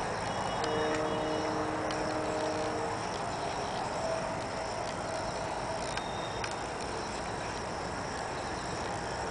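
Outdoor field ambience with a steady high insect drone, with a faint held tone for about two seconds near the start and a few faint clicks.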